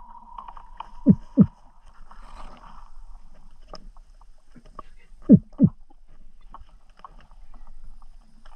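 Underwater sound of a freediving spearfisher swimming: pairs of short, low thumps that drop in pitch, the two a third of a second apart, come about every four seconds. A faint steady hum runs under the first couple of seconds.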